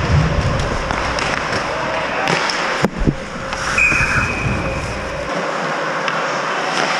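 Ice hockey play on an indoor rink: skates scraping the ice under steady rink noise, with a few sharp clacks of sticks and puck about two to three seconds in and a brief high tone about four seconds in.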